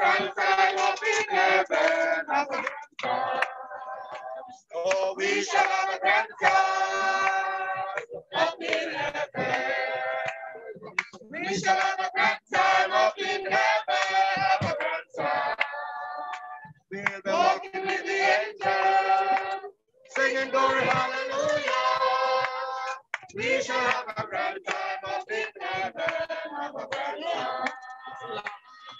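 A group of mourners singing a gospel chorus together, phrase after phrase with short breaks between them.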